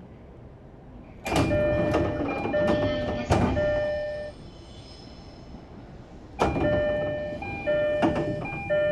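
Door chime of a JR East E231 series 1000 commuter train (set K-23): an electronic chime of a few alternating notes, sounding twice, each time with knocks and clatter from the sliding doors. On this set the chime differs from the one the series normally plays.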